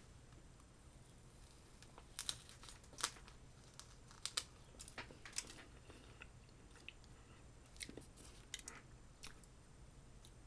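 Faint chewing and biting into a cupcake, with a scattering of small, sharp crunches.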